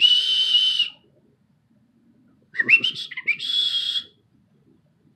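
Pet parrot whistling: a long, slightly raspy held whistle, then after a short pause a run of short rising notes leading into another held whistle.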